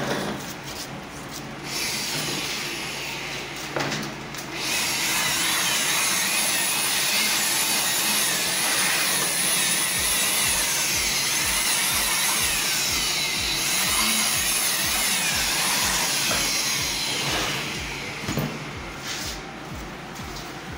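Handheld electric blower running, blowing dust out of an open desktop computer case. It gives a steady high hiss of motor and rushing air that starts about two seconds in and dies down near the end.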